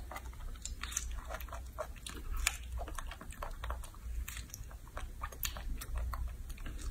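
Baby macaque biting into and chewing fresh strawberries: irregular wet smacking and chewing clicks.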